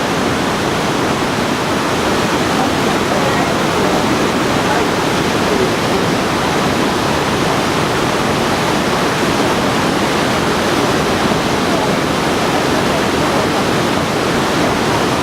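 Kegon Falls, a tall plunge waterfall, pouring down with a loud, steady rush of falling water.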